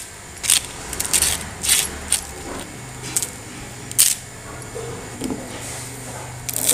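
Crispy deep-fried potato sticks being snapped and broken apart by hand: a string of sharp, irregular cracks and crunches, the loudest about four seconds in, the sign of how crisp and crunchy the sticks are.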